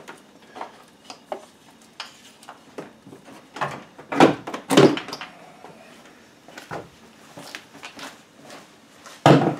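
Plastic knocks, clicks and rattles as the S197 Mustang GT's stock airbox and intake tube are worked loose and lifted out of the engine bay, with two louder thunks about four and five seconds in and another near the end.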